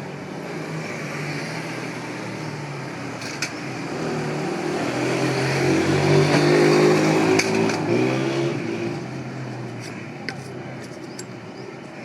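A motor vehicle's engine passing by, growing louder to a peak midway and then fading away, over steady street background noise with a few light clicks.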